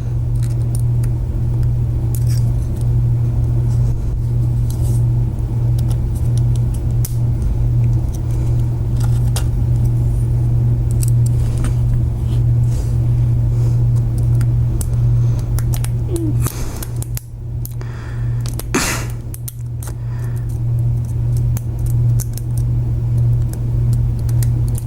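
Small metallic clicks and scrapes of a lock pick and tension wrench working the pins in a tiny padlock's keyway, a few a little louder about two-thirds of the way through. A steady low hum runs underneath and is the loudest sound.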